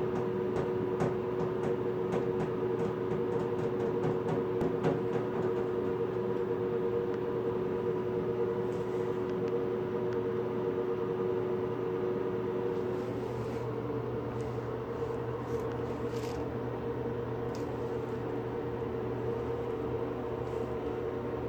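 Steady mechanical hum, like a household appliance or fan running, holding two even tones, with faint scattered clicks and taps over it.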